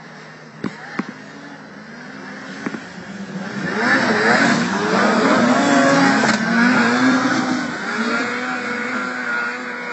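Racing snowmobile engine approaching and passing close at speed, its whine sliding up and down in pitch. It is loudest a few seconds in, then fades as it moves away.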